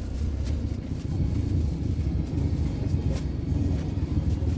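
JBL Go 3 amplifier driving Tribit MaxSound Plus speaker drivers, playing bass-heavy music. Deep bass dominates throughout, with little treble above it.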